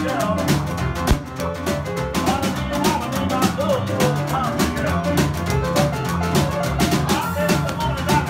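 A small acoustic band playing: a snare drum and cymbal struck with sticks keep a fast, steady beat over an upright double bass plucked in a stepping bass line.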